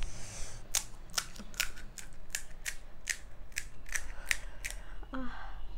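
A quick, even run of about a dozen crisp clicks, roughly three a second, from hands working at something small.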